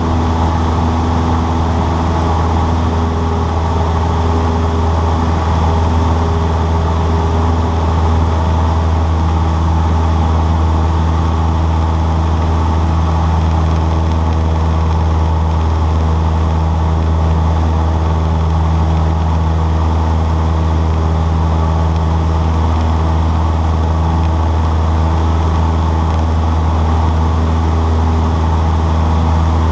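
Cessna 152's four-cylinder Lycoming engine and propeller running steadily: a constant, loud low drone with no change in pitch.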